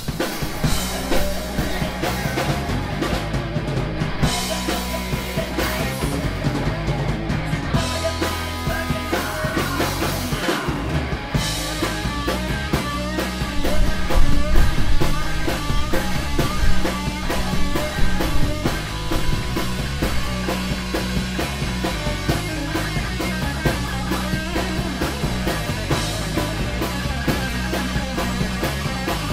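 Live rock band playing loudly: distorted electric guitars, bass and a drum kit.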